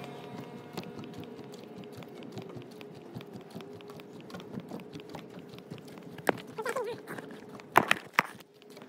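Footsteps on wooden boardwalk planks, an uneven run of light knocks over a faint steady hum, with a few louder, sharper knocks near the end.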